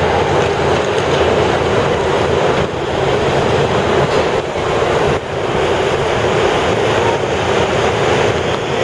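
A row of large wind-machine propeller fans running steadily, a loud constant rushing noise, over water choppy from the wind.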